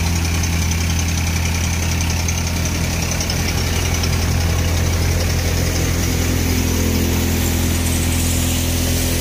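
Massey Ferguson 1035 DI tractor's three-cylinder diesel engine running steadily under load, driving a multicrop thresher whose drum and fans whir along with it.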